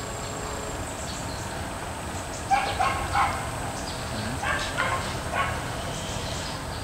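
A dog yipping: a few short, high yelps in two clusters, about two and a half and about four and a half seconds in.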